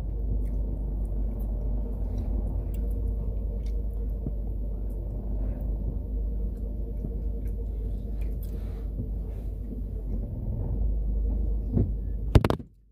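Car cabin noise while driving: a steady low rumble of road and engine heard from inside the car. Near the end there is one sharp knock, and then the sound cuts off.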